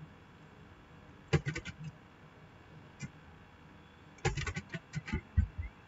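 Computer keyboard keystrokes in two quick bursts, one about a second in and a longer one from about four seconds in.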